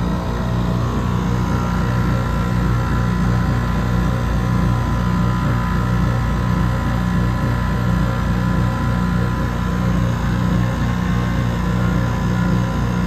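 Copeland scroll compressor in an air conditioner's outdoor condensing unit running, a steady electric hum with a constant pitch.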